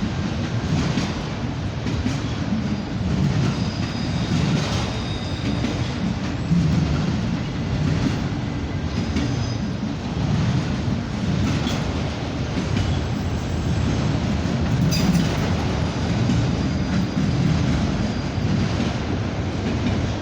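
Norfolk Southern freight train rolling past: a steady rumble of cars on the rails, with irregular wheel clicks over rail joints and a faint high wheel squeal now and then.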